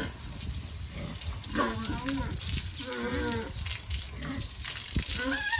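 Pigs calling: two short pitched calls, about one and a half seconds and three seconds in, over a low background rumble.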